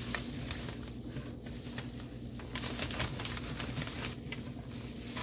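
Plastic freezer bag crinkling and rustling as it is handled and a straw is worked into its opening, with scattered small clicks over a steady low hum.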